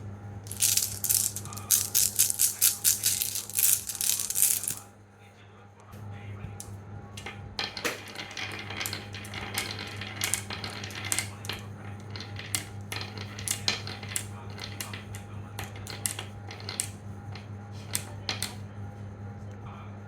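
Marbles clattering down a wooden marble run in a fast, dense rattle of clicks. The rattle is loudest for the first few seconds, breaks off briefly about five seconds in, then goes on as lighter, scattered clicking. A steady low hum sits underneath.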